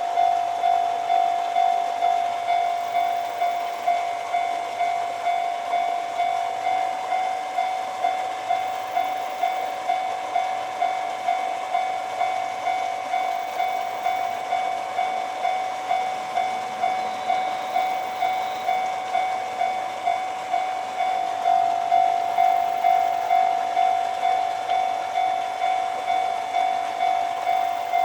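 Japanese railroad crossing warning bell ringing steadily at one pitch, about two strikes a second: the crossing's alarm is active, signalling an approaching train.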